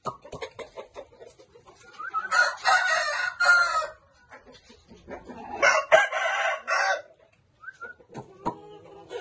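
Rooster crowing twice, each crow lasting about two seconds, the second starting about three seconds after the first ends.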